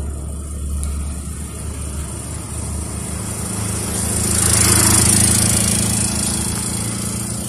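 A small engine running steadily, swelling louder about halfway through and easing off slightly toward the end.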